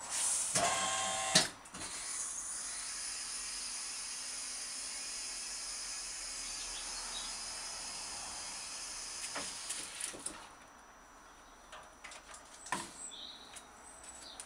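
Custom-made motorcycle table hoist lowering a motorbike. A loud burst with a brief whine at the start gives way to a steady hiss that stops abruptly about ten seconds in, followed by a few light clicks and knocks.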